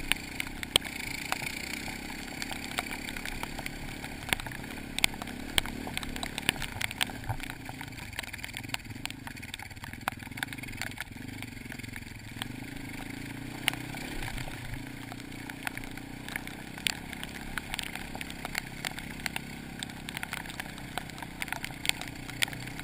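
Dirt bike engine running steadily at low, even speed, with frequent sharp clicks and knocks scattered throughout as the bike goes over a muddy, rutted track.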